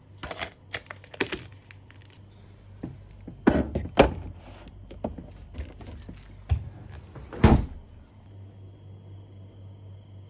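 Clicks and knocks of a plastic yoghurt tub being handled and set into a fridge door shelf, with louder thuds about three and four seconds in, then the fridge door shutting with a thump about halfway through.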